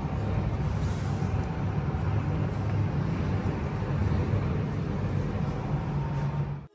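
Steady low rumble and hiss of railway station ambience, with no distinct events, cut off suddenly near the end.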